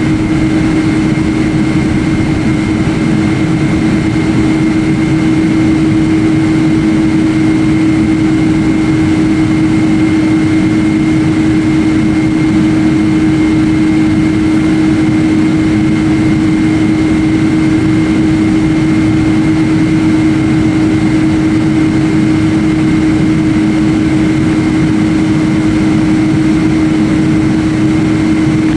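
Airliner cabin noise: jet engines and rushing air make a loud, steady drone with a constant low hum and a faint higher whine.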